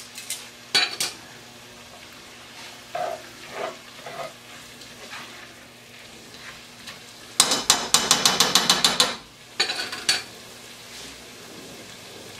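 A cooking spoon stirring vegetables in a cast-iron Dutch oven, scraping and knocking against the pot, over a faint sizzle. About two-thirds of the way in comes a quick run of rapid scraping strokes, then a shorter burst.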